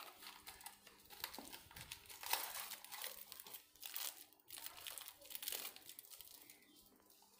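Plastic packet crinkling and rustling as it is handled, a run of crackly rustles that dies away about six seconds in.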